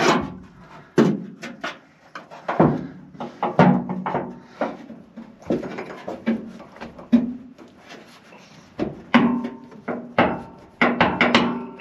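Steel fifth-wheel hitch mount bracket knocking and clanking against the truck's frame as it is forced into place, trying to seat its locating peg. About a dozen sharp metal knocks come at irregular intervals, several with a brief ring, and a quick run of them falls near the end.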